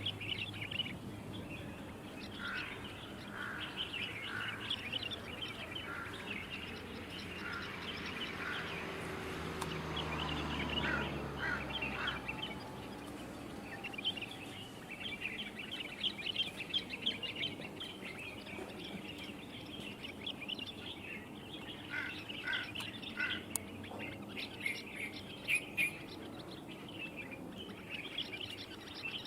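Small birds chirping repeatedly, short calls in quick runs throughout. Around ten seconds in, a low rumble swells and fades beneath them.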